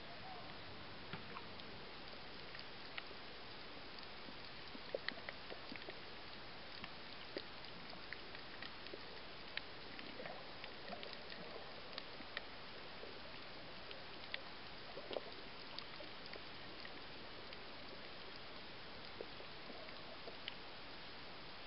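Underwater reef ambience: a steady hiss of water with scattered sharp clicks and crackles at irregular intervals.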